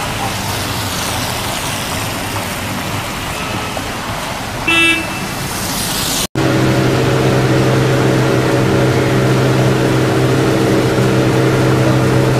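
Road traffic noise with a short car horn toot just before five seconds in. After a sudden cut, a steady low engine drone with several held tones.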